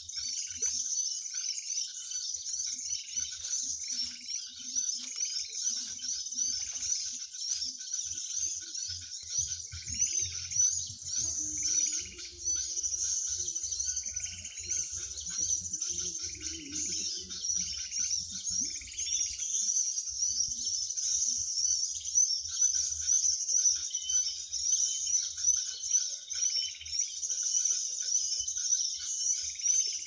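Small birds chirping in a dense, continuous high-pitched chatter, with a repeated lower call note running underneath. Low rustling and bumps come through in the middle.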